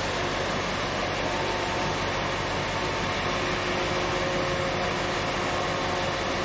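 Steady rumbling hum of a large container ship's machinery as the vessel passes close by, with a few faint steady tones over an even wash of noise.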